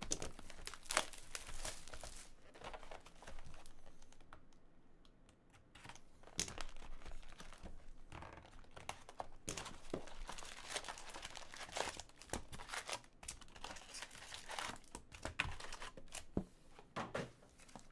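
Plastic wrapping and foil trading-card packs crinkling and rustling as they are handled, with scattered tearing sounds and a short lull about four seconds in.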